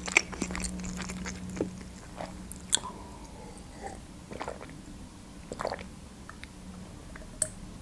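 Quiet close-miked mouth sounds of eating and drinking: chewing, then sips and swallows of lemon water from a glass, heard as small scattered clicks and wet noises.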